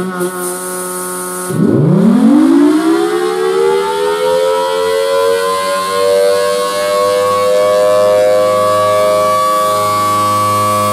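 Federal Signal Thunderbolt 1003 siren winding up: after a steady hum, about a second and a half in its pitch climbs quickly from low and levels off into a loud steady tone, its rotating horn sweeping past.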